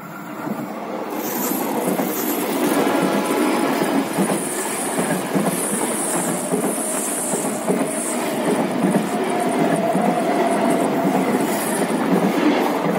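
Ex-Tokyo Metro 6000 series electric commuter train passing close by on a curve: the rumble of wheels on rail grows over the first couple of seconds and then holds. For much of the first half there is a high squeal from the wheels rounding the curve.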